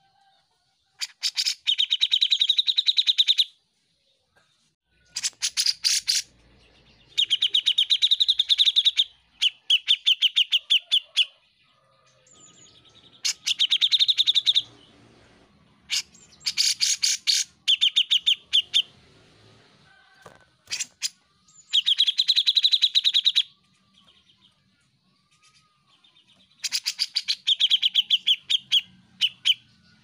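Grey-cheeked bulbul (cucak jenggot) singing in loud bursts of rapid repeated notes, each burst one to three seconds long, coming every few seconds.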